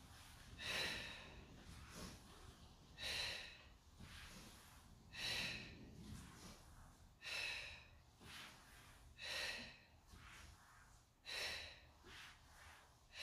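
A woman breathing hard from exertion during a plank exercise, a short, forceful exhale about every two seconds.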